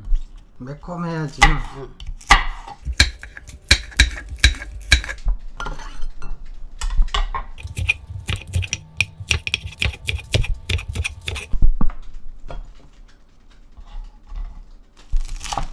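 Kitchen knife slicing through crisp Korean radish and then a green onion on a wooden cutting board: a quick, irregular run of knocks on the board that stops a few seconds before the end.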